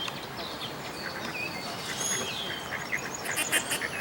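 Mallard ducklings peeping: thin, high peeps that slide down in pitch, repeated several times, with a quick burst of sharp chips about three and a half seconds in.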